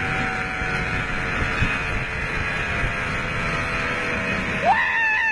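Zipline trolley running along the steel cable with a steady whirring hum, and wind rushing over the microphone in gusts. Near the end a person's voice rises into a held call.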